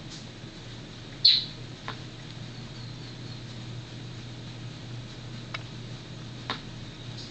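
Domestic cat chirping at a bird: one loud, short, high squeaky chirp about a second in, then a few fainter brief squeaks.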